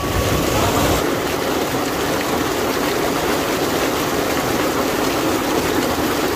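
Tubewell outflow: a heavy, steady gush of water pouring from a wide pipe into a concrete tank and churning the pool.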